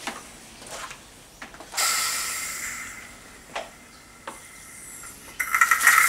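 Ryobi 2000W electric pressure washer being primed: a sudden hiss of water and air rushing out of the spray gun, fading over a couple of seconds, with a couple of sharp clicks. Near the end the washer starts up and runs loud and steady, with a whine over a hissing spray.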